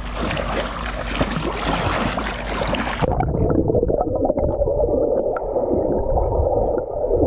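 Pool water splashing and sloshing as a person walks through it, pushing and pulling foam aqua dumbbells. About three seconds in, the sound is suddenly heard from underwater: muffled and low, with faint clicks.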